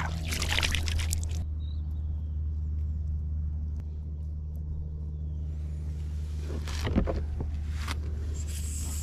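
Water splashing and swirling as a flounder is released by hand at the side of a kayak, lasting about a second and a half, over a steady low hum. A short rustle of handling comes about seven seconds in.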